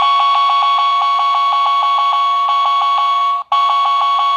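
Electronic alarm beeping rapidly back and forth between two tones, with a short break about three and a half seconds in.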